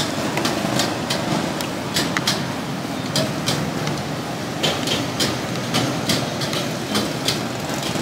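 Busy street food stall ambience: a steady din of passing traffic, with irregular sharp clinks and knocks of utensils and dishes.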